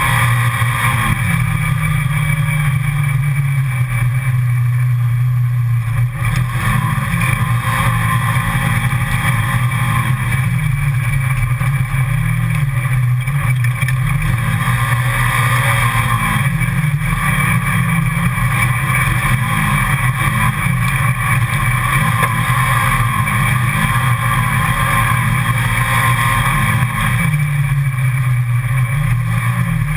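Side-by-side utility vehicle's engine running steadily as it drives along a rough dirt trail, heard from inside the cab. Its pitch rises and falls several times as the throttle changes.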